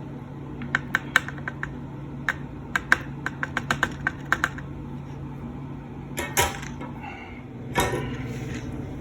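Rosin flux crackling and popping in quick irregular clicks as a hot soldering iron tip works the regulator's solder joints, with two short sizzling hisses later on. A steady low hum runs underneath.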